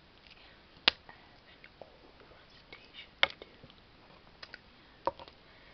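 Three sharp clicks, each about two seconds apart, with a few faint small ticks between them.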